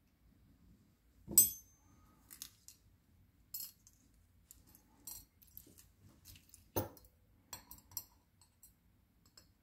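Small metal clicks and clinks of lock pins, tweezers and a lock core being handled and set down on a metal pin tray. The loudest is a sharp clink with a brief ring about a second and a half in, with another firm tap near seven seconds and scattered light ticks between.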